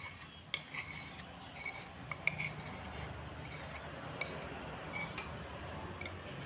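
A metal spoon clinking and scraping against a bowl as thick sweet soy sauce is scooped and poured from it into a pot. There are a few sharp clinks in the first couple of seconds, then only faint scraping over a low steady hum.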